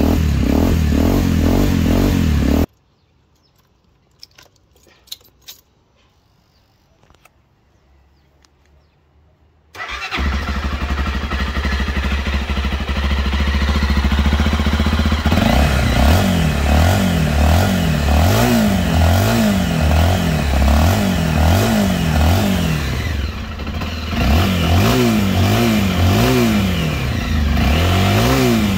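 A Honda XR250 Tornado's single-cylinder engine runs through its homemade stainless-steel exhaust, then is shut off abruptly, leaving a few faint clicks. About seven seconds later a Honda XRE 300's fuel-injected single starts, idles briefly, and is then blipped over and over, the revs rising and falling about once a second.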